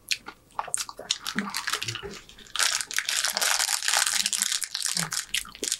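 Plastic fortune-cookie wrapper crinkling as it is handled and opened by hand. A few scattered small clicks come first, then steady close crackling from about two and a half seconds in.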